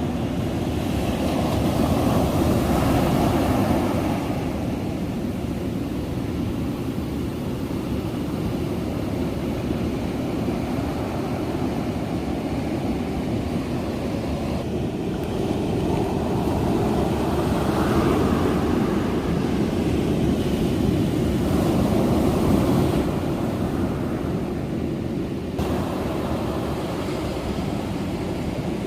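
Ocean surf and wind as a steady low rumble, swelling twice: a few seconds in and again about two-thirds of the way through.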